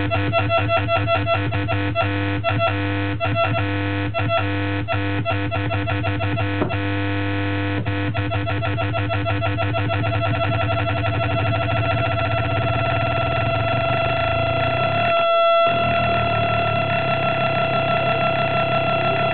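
Homemade 40106 CMOS hex Schmitt trigger oscillator box droning with several square-wave tones at once, chopped into a stuttering pulse by its LFO. The pulsing turns faster and denser after about eight seconds, and the sound cuts out for a moment about fifteen seconds in.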